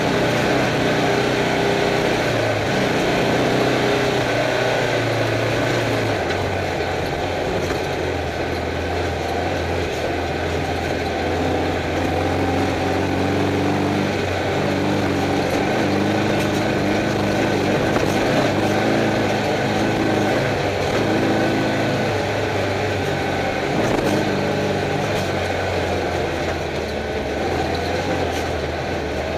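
Air-cooled flat-four engine of a stock Volkswagen Beetle race car, heard from inside the cabin while driving, over steady noise. The engine note changes as the car drives, dropping about six seconds in and climbing again later.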